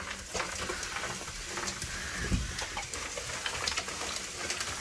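Dry ice pellets soaked in alcohol fizzing and crackling on a car's floor pan, a steady hiss dotted with small clicks. The cold is starting to crack the old sound deadening material.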